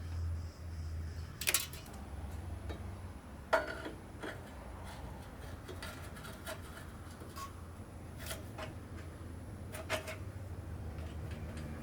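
Scattered metallic clinks and taps of hand tools against metal parts, the loudest about three and a half seconds in with a short ring, over a low steady hum.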